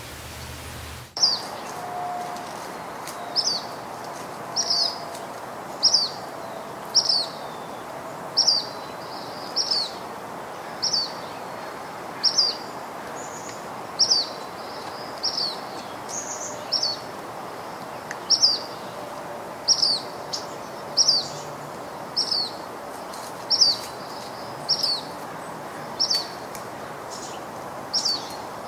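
A bird repeating a short, high, downward-sweeping chirp about every second and a half over a steady background hiss. The calls begin about a second in.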